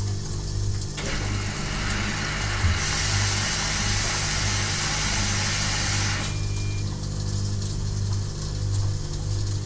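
Washing machine running with a low, pulsing hum. About a second in a hiss starts, growing loud and bright from about three seconds in, and cuts off suddenly about six seconds in.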